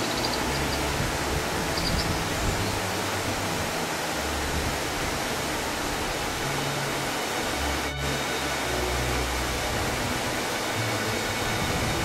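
Soft background music with low sustained notes shifting every second or two, over a steady rushing noise. Two brief faint high chirps come near the start.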